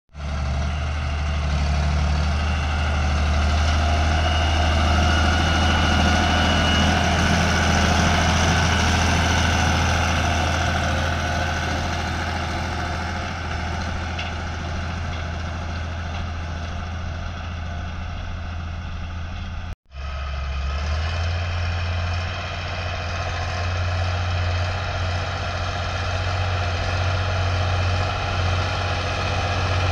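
SAME Antares 110 tractor's diesel engine running steadily under load while pulling a disc harrow through ploughed soil. The sound cuts out for an instant about twenty seconds in, then carries on.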